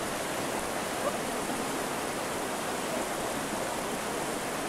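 Whitewater of a river rapid rushing steadily over rocks.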